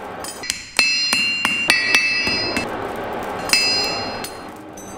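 Blacksmith's hammer striking a glowing iron bar on an anvil. There is a quick run of blows, about three a second, then a pause and one more blow about three and a half seconds in. Each blow leaves a high ringing tone.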